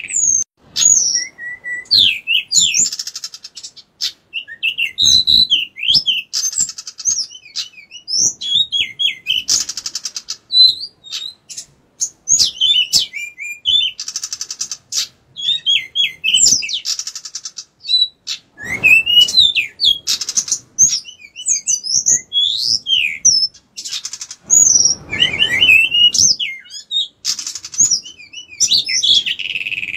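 Male pied bushchat (decu) singing non-stop: rapid, varied whistled phrases broken by harsh buzzy rattles, with only short pauses. Two stretches of low noise sit under the song, one a little past halfway and one near the end.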